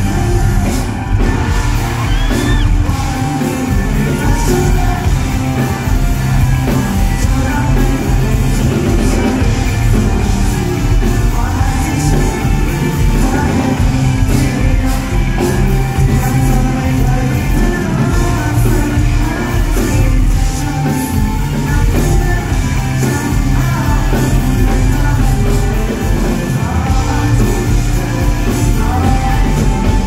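Live pop-rock band playing: lead vocals over electric guitar, keyboard and drum kit, loud and steady, heard from the audience in a large concert hall.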